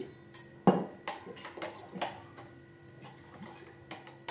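Kitchen handling noises: one sharp knock with a short ring about half a second in, then a few lighter clicks and taps, as a plastic syrup bottle and a plastic pitcher are handled on a tiled counter.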